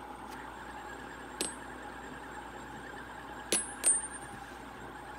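Sharp metallic clinks of polished metal fidget spinners being handled and set down on the mat: one about a second and a half in, then two close together about three and a half seconds in, each with a short high ring. A faint steady whir of a spinning spinner's bearing runs underneath.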